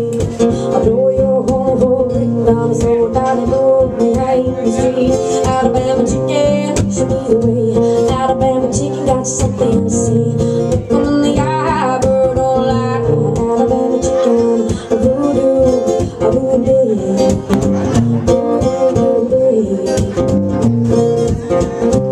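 A woman singing live to her own acoustic guitar.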